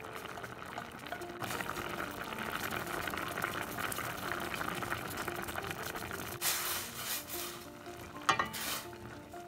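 Diced bottle gourd bubbling and sizzling in a steel pan. Near the end a wooden spoon stirs it, with scraping sounds and a sharp clatter against the pan.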